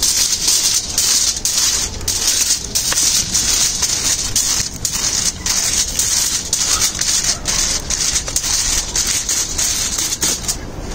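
Coal fire crackling and hissing: a steady hiss broken by many small irregular snaps as foil-wrapped fish roasts over the coals.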